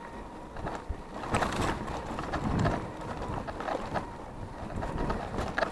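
Wind buffeting an action camera's microphone on a mountain bike riding a rough dirt trail, with tyre rumble and rattling knocks from the bike over the ground; a sharp knock near the end.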